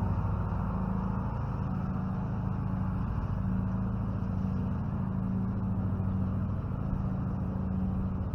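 A steady low motor hum, constant in pitch and level.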